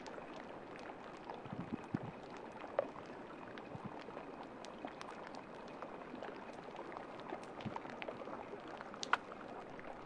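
Faint, steady sound of water lapping and trickling, dotted with small ticks and clicks; two sharper clicks stand out, about three seconds in and about nine seconds in.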